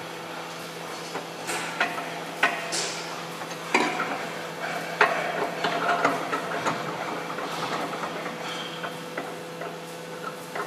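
Sheet metal and steel clamp parts of a welding jig knocking and clinking at irregular intervals as the sheet is positioned and the clamps are tightened by hand, over a steady hum.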